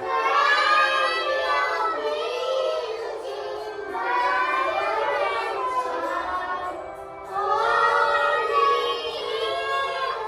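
Young children singing a Christmas song together, in phrases with short breaths between them.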